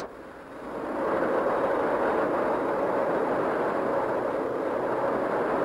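Steady rushing vehicle noise that swells up over about the first second, holds level, and cuts off abruptly at the end.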